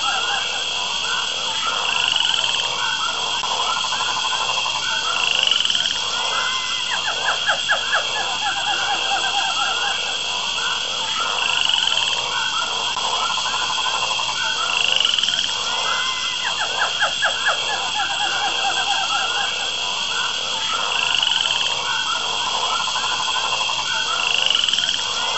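A chorus of frogs croaking in quick rattling trains over a steady high-pitched hum, with a short rising chirp every three seconds or so. The whole pattern repeats about every nine to ten seconds.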